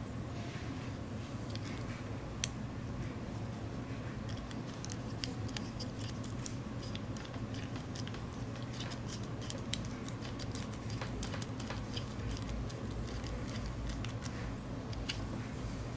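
Small screws being turned with a precision screwdriver into an aluminium Makeblock motor bracket: a run of light, irregular metal clicks and scrapes, thickest through the middle, over a steady low hum.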